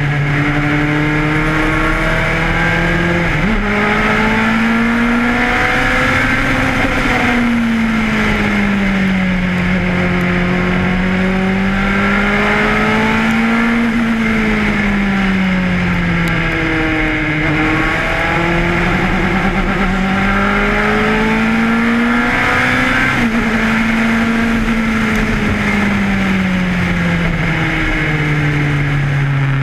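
The Ford Cosworth DFV V8 of a Lotus 91 Formula One car, heard onboard at racing speed. Its note rises and falls several times as it speeds up and slows, with a couple of sudden steps in pitch.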